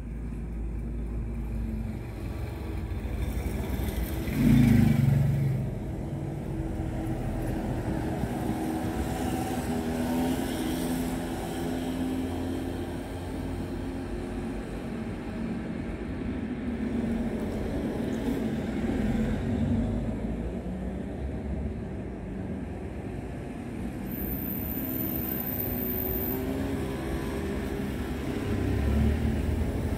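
Road traffic: car engines running and cars passing close by, with a loud pass about four and a half seconds in and another vehicle coming up near the end.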